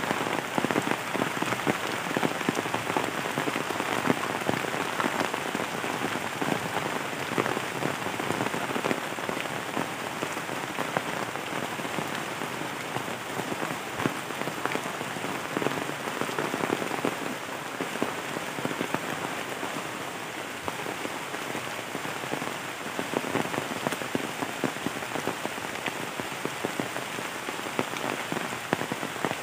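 Heavy rain falling on the leaves of trees and bamboo, a steady, dense hiss of countless drops.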